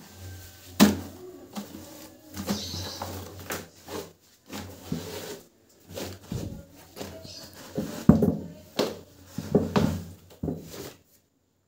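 Laundry being washed by hand in plastic basins of soapy water: irregular swishes and splashes of wet fabric being scrubbed and wrung, with knocks against the tub.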